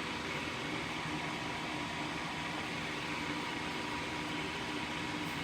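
Steady fan-like hum and hiss with a few faint constant tones, unchanging throughout.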